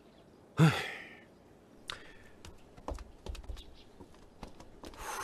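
A short, loud vocal huff with a falling pitch, then a run of light, irregular clicks and taps.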